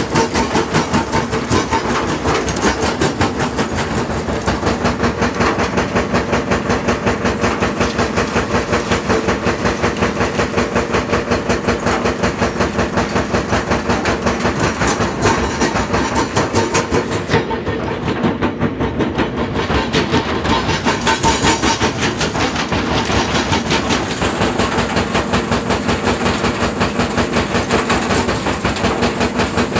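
Vibrating grizzly feeder running under a load of boulders: a loud, steady mechanical rattle and rumble with a rapid, even pulse from the feeder's shaking deck and the rocks knocking on the steel.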